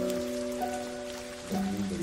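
Steady rain patter with soft background music of long held notes over it; new notes come in about a second and a half in.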